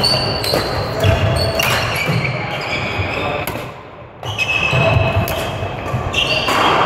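Badminton doubles play: sharp racket strikes on the shuttlecock and sneakers squeaking on the court floor, with a brief drop in sound just before four seconds in.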